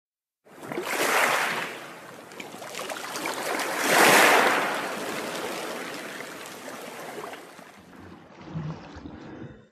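Sea waves washing onto a beach, with two surges about a second and four seconds in, then the wash slowly fading away.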